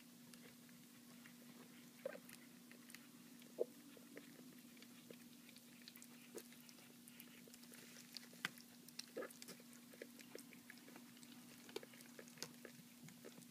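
Chihuahua puppy eating soft food from a dish: faint, irregular little smacks and clicks of its mouth, over a steady low hum.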